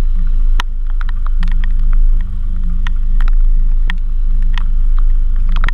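Raindrops striking a car-mounted action camera's housing as irregular sharp ticks, with a short cluster near the end, over a steady low rumble.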